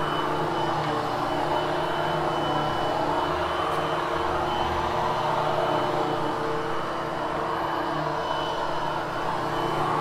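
Upright vacuum cleaner running steadily as it is pushed over polyester carpet: a constant motor hum with a thin high whine above it. It is post-vacuuming to groom the freshly cleaned carpet.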